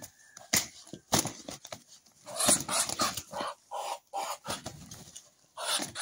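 Muscovy drake and rooster fighting: wings beating and bodies scuffling against each other and the ground in irregular sharp flurries, busiest a couple of seconds in and again near the end.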